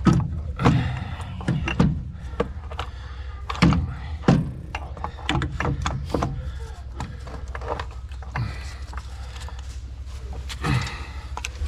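Irregular metal knocks and clanks of hand tools and parts being worked on a tractor under teardown, spaced unevenly, over a steady low hum.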